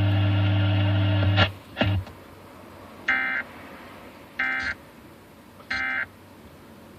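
Emergency Alert System End of Message data tones over FM radio: three short, identical digital bursts about a second and a half apart, marking the end of the Required Monthly Test. Before them, a steady sound cuts off about a second and a half in, followed by a brief blip.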